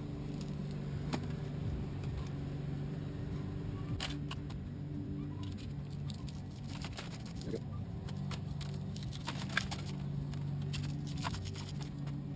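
Light clinks and taps of broken glass and metal in irregular runs, thickening through the second half, as the old gasket and glass fragments are worked out of the window's bottom channel. A steady low hum runs underneath.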